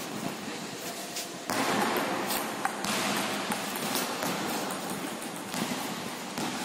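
Table tennis rally: a ping-pong ball clicking off the paddles and the table a few times, over steady background noise.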